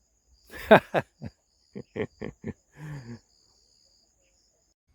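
Steady high-pitched insect chirring. Over it comes a falling cry about half a second in, then a run of six or so short calls ending near three seconds in.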